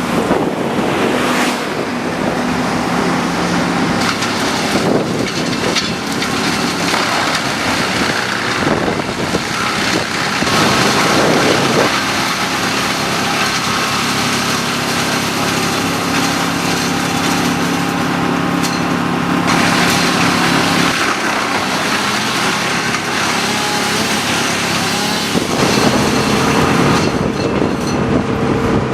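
Wind buffeting the microphone, with an engine running steadily underneath; the mix changes abruptly a few times.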